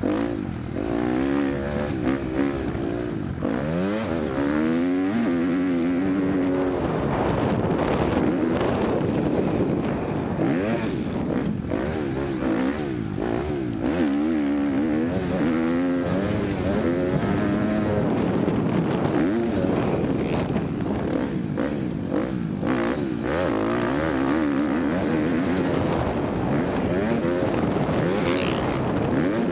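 Several motor vehicle engines running at once, their pitch rising and falling as they rev or pass.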